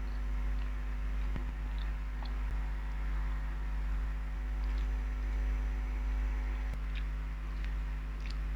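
Faint chewing and small mouth and handling clicks of someone eating grilled rib meat, over a steady low hum.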